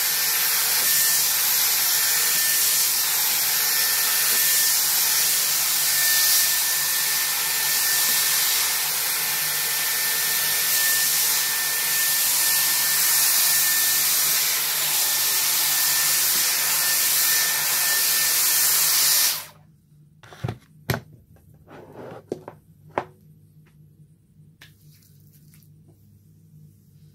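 Dyson Airwrap with its firm smoothing brush attachment blowing air steadily, with a thin high whine over the rush of air. It stops abruptly about nineteen seconds in, followed by a few light knocks.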